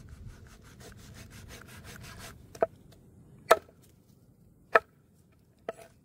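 Meat cleaver cutting goat head meat on a wooden chopping board: a quick run of rasping strokes for about two seconds, then four sharp chops about a second apart.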